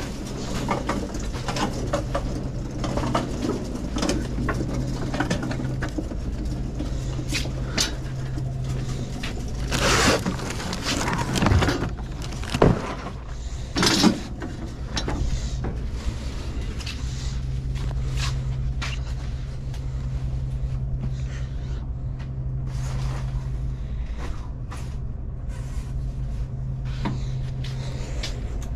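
A Magliner hand truck loaded with cases of bottled water is handled along a store aisle, giving a run of small clicks and rattles over a steady low hum. A few louder knocks and rustles come near the middle, as a glass cooler door is pulled open.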